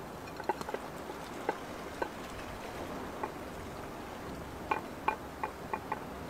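Knife cutting onion and tomato against a wooden cutting board: scattered sharp taps, then a quick run of about five slicing taps near the end as the tomato is sliced, over a steady low hiss.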